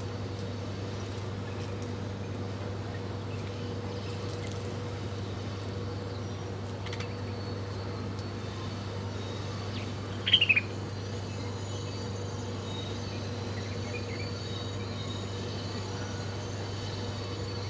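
A small bird gives a quick run of three or four falling chirps about ten seconds in, over a steady low hum, with faint high-pitched calls in the background.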